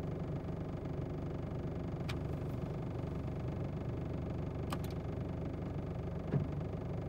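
Isuzu D-Max pickup's engine idling steadily, heard inside the cab, with a few faint clicks and a soft bump about six seconds in.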